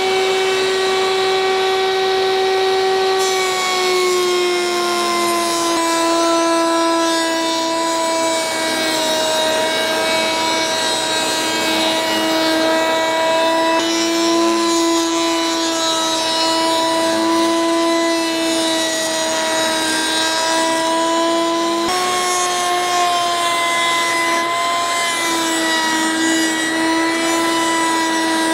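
Table-mounted router running at full speed with a steady high whine, its pitch sagging as the tongue-and-groove bit cuts into a pallet slat fed along the fence. The pitch recovers for a moment about three-quarters of the way through and then sags again as the cut takes up once more.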